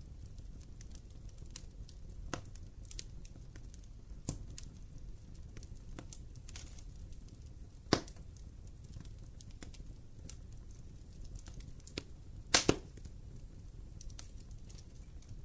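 Wood fire crackling in a fireplace: a low steady rumble of flames with scattered small snaps, a loud pop about eight seconds in and a quick double pop a few seconds later.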